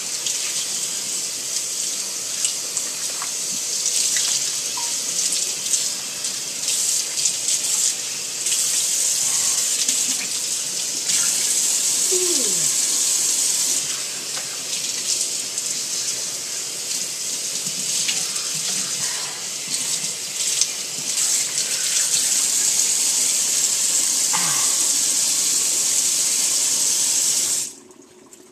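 Kitchen sink faucet running steadily onto wet hair and into the sink while hair is rinsed by hand, the splashing shifting as the hands move through it. The running water stops suddenly near the end.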